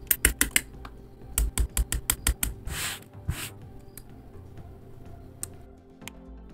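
Hobby nippers snipping plastic model-kit parts off the sprue: a quick run of sharp clicks, then a second run about a second and a half in. Two short scraping rustles follow, then a few sparse plastic clicks as small parts are fitted together. Faint background music runs underneath.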